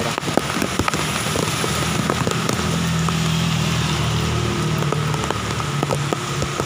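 Heavy typhoon rain pouring, with many sharp drops pattering close by. A passing vehicle's engine hums underneath, strongest from about two to six seconds in.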